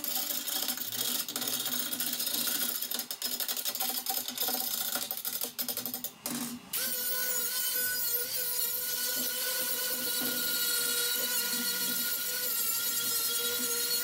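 Knocks and clatter of steel plates being moved on a steel table, then about halfway through a Milwaukee cordless angle grinder starts and runs steadily with a high whine, grinding the edges of plasma-cut 3/16-inch mild steel plates.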